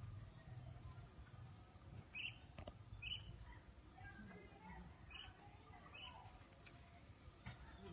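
Faint bird chirping: four short, high chirps spread a second or so apart, over a low rumble.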